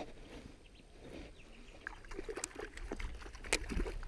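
A hooked redfin splashing at the water's surface beside a kayak as it is reeled in, a quick run of sharp splashes in the second half.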